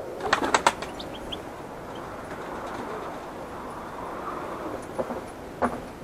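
Small finches in an aviary: a quick flurry of sharp wingbeats about half a second in and two more near the end, with a few faint, short high calls in between.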